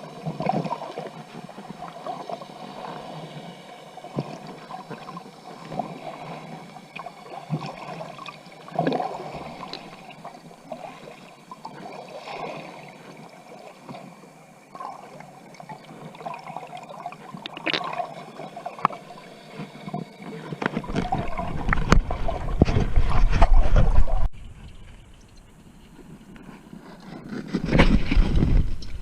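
Water gurgling and sloshing close to the microphone, with irregular small splashes. About two-thirds of the way in it turns into loud, deep rushing splashes. After a muffled lull it surges again near the end.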